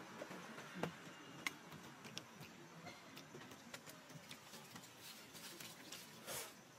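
Faint scattered clicks and soft rustling of monkeys moving on dry, leaf-strewn ground, with a brief louder rustle about six seconds in.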